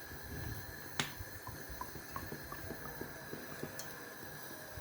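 Palm oil being poured into a pot on the stove: a sharp knock about a second in, then a run of faint drips and small ticks.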